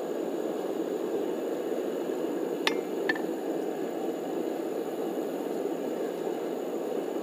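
Two sharp metallic clinks a little under three seconds in, a hammer being set down on a steel anvil, over a steady rushing noise.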